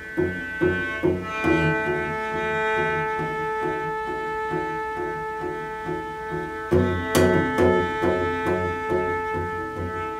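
Solo cello played with the bow: a steady pulse of short, repeated low notes, about two or three a second, under a held higher tone. A sharp percussive knock comes about seven seconds in.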